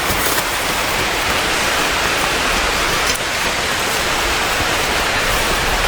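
Steady, even rushing hiss of falling or running water.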